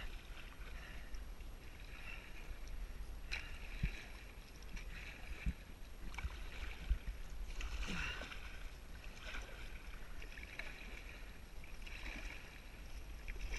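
Double-bladed kayak paddle dipping and pulling through the water on alternating sides, a splash and drip at each stroke about every second and a half, with a low rumble beneath.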